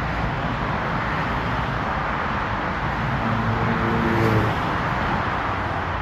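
Steady road traffic noise, with one vehicle's engine hum rising and fading about three to four seconds in.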